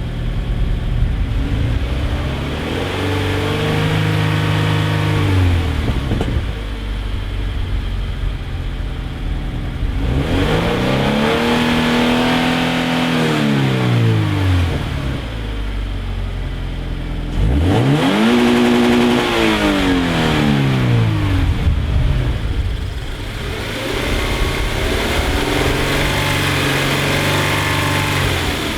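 Scion FR-S's 2.0-litre flat-four boxer engine breathing through a GReddy EVOlution GT stainless steel exhaust, revved up and back down four times with idle in between. The third rev is the sharpest and loudest.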